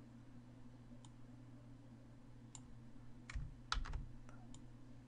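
Scattered clicks of a computer keyboard and mouse, about seven in all, bunched between roughly two and a half and four and a half seconds in, over a faint steady low hum.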